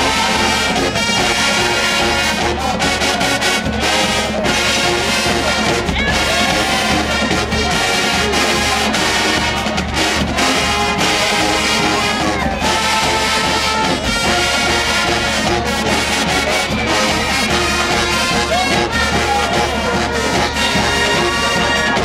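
HBCU-style marching band playing a loud, brass-heavy tune, sousaphones, trombones and trumpets over a steady drumline beat.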